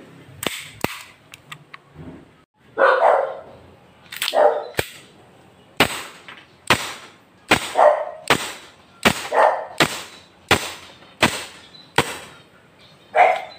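WE M1911 gas blowback airsoft pistol firing a string of shots, each a sharp crack as the slide cycles, coming steadily about one every 0.7 seconds through the second half. A dog barks loudly several times between the shots; the first bark, about three seconds in, is the loudest sound.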